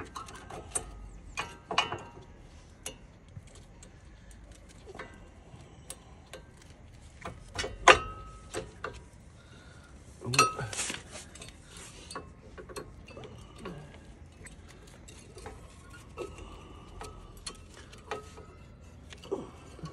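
Irregular metallic clinks and knocks of hand tools against the brake caliper and pads during a brake pad change, some with a short metallic ring; the loudest come about eight and ten seconds in.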